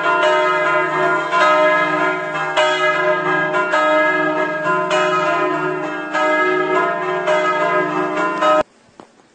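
Church bells ringing together, repeated strikes with long overlapping ringing tones, cutting off abruptly near the end.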